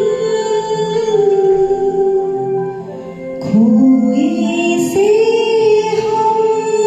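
Karaoke duet of a Hindi film song: singers holding long, sliding notes over a backing track, with a lower voice coming in about halfway through.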